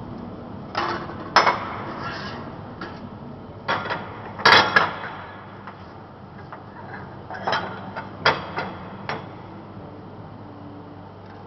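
Sharp metallic clanks and knocks, about a dozen in irregular groups with the loudest near the middle, as steel parts and tools are handled while an insert is fitted into a corrugated-elbow bending machine.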